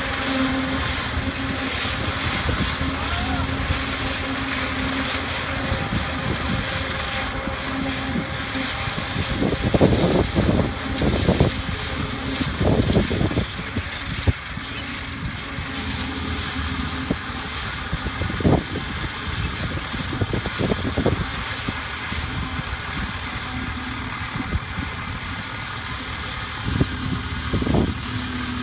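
Swaraj 855 tractor's three-cylinder diesel engine powering a Shaktiman fodder harvester as it chops standing corn for silage: a steady drone with a steady hum. Louder, uneven surges come about ten seconds in and again near the end.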